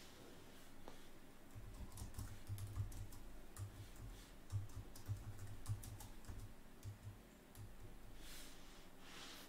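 Typing on a computer keyboard: a run of quick, uneven keystrokes, faint, followed by a short soft hiss near the end.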